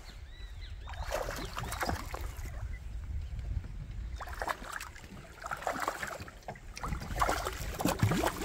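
A large hooked fish splashing and thrashing at the water's surface while it is reeled in; the splashes grow louder near the end as it reaches the side of the aluminium boat.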